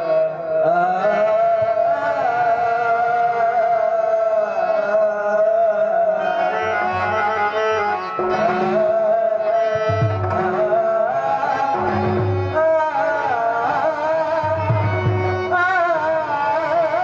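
A man singing a Tamil stage song live into a microphone, accompanied by a harmonium's held notes and tabla. Deep drum beats come in partway through and recur every second or two.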